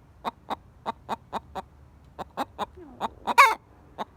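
Buff Orpington hen giving an alarm call: a run of short sharp clucks, about four a second, broken by one loud drawn-out squawk about three seconds in. She is still alarmed after a predator was chased off and won't settle down.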